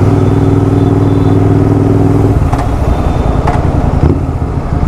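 Royal Enfield Continental GT 650's 648 cc parallel-twin engine running loud through a Gursewak Big Shot aftermarket exhaust: a steady even note for about two seconds, then the note turns rougher and less even.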